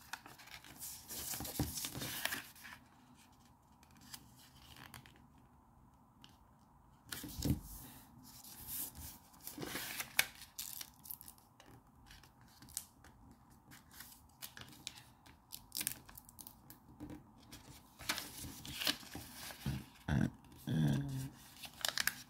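A sheet of origami paper being folded and creased by hand: irregular rustling and crinkling, with short sharp strokes as fingers press along the folds.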